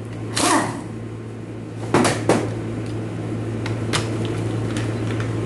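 Metal parts of a dismantled automatic transmission clanking and scraping as they are handled. There is one clank about half a second in, two close together around two seconds in, and a short tap near four seconds, over a steady low hum.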